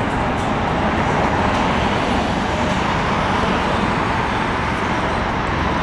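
Steady road traffic noise, an even hiss and rumble with no distinct events.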